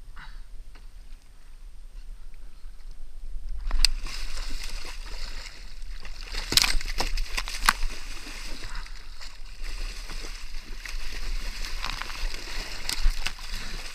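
A large hooked fish thrashing at the surface right beside a kayak, water splashing and slapping against the hull again and again from about four seconds in. The fish is still green: far from played out.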